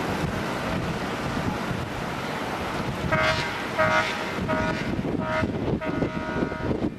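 A horn sounds five short flat-pitched toots, the last one longer, over steady wind buffeting on the microphone as the boat moves along.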